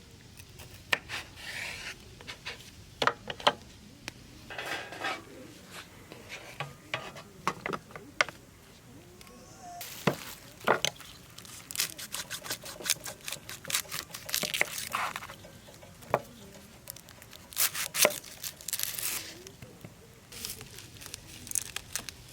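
Irregular clinks, taps and rustling of small objects being handled, in scattered short sounds with a busier stretch in the second half.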